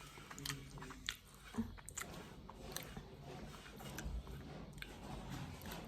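Close-miked eating: a person chewing food, with a few sharp crunches from a crisp snack between the chews.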